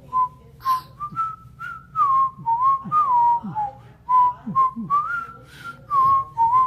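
Someone whistling a tune: a run of clear notes that step and slide up and down, some held, some short, with small clicks between them.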